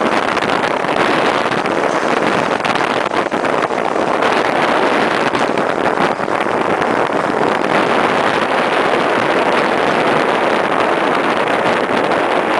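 Steady rushing noise of a sled speeding down a packed-snow run: wind on the microphone mixed with the runners scraping over the snow.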